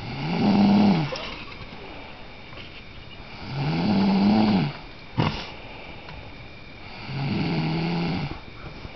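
Loud snoring: three long snores about three seconds apart, each about a second long and rising then falling in pitch. A short sharp click comes between the second and third.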